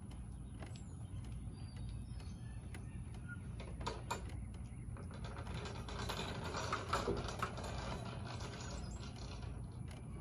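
Faint outdoor ambience: a steady low rumble with scattered light clicks and taps, a little busier in the middle.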